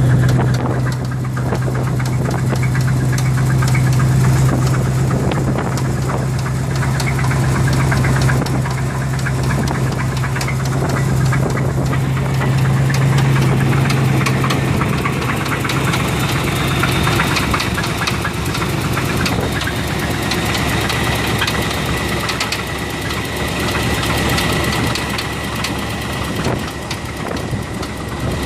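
Chevrolet 305 small-block V8 running steadily with a rapid, continuous knock; the cause of the knock is not yet diagnosed. A steady low hum fades a little over halfway through, and a faint high whine comes in later.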